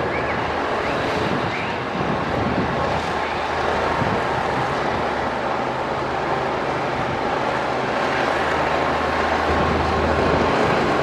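Heavy diesel earthmoving machinery running steadily under load, with a low engine hum that grows slightly stronger in the second half.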